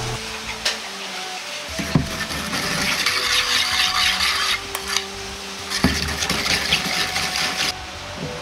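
A metal spoon stirring a liquid sauce in a stainless steel bowl. A few clinks against the bowl's side come first, then two spells of rapid scraping stirring.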